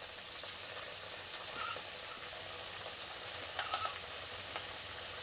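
Besan-battered cabbage fritters deep-frying in hot oil in a steel kadai: a steady sizzle with scattered crackles and pops.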